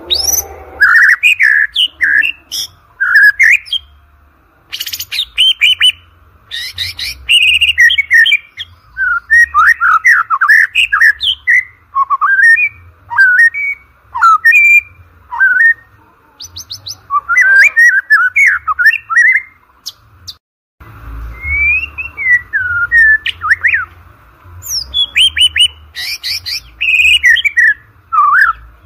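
White-rumped shama singing: loud phrases of varied, fast-changing whistles, quick rising and falling slurs and rapid chattering trills, broken by short pauses of about a second.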